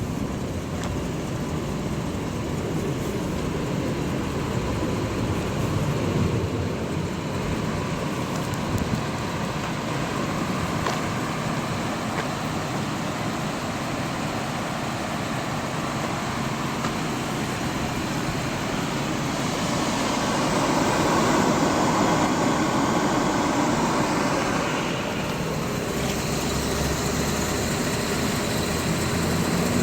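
A motor vehicle running steadily, swelling louder for a few seconds about two-thirds of the way through.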